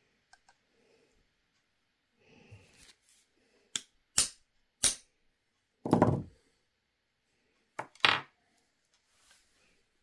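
Hammer striking a metal snap-fastener setting tool, about six sharp metallic clinks spread over a few seconds, one heavier blow about six seconds in. The work rests on a solid wooden log used as an anvil, which gives the blows a dull thud underneath.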